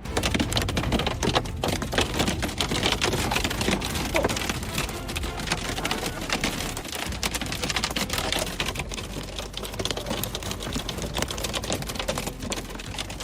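Hail pelting down with rain: a dense, steady clatter of countless hailstones striking hard surfaces.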